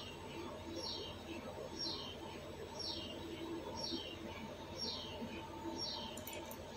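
A small bird calling over and over, about once a second, each call a quick high note sliding downward. A faint steady hum lies under it.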